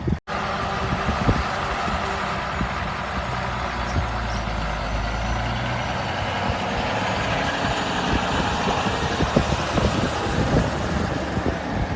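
A large vehicle's engine running steadily under a dense rushing noise, with scattered knocks.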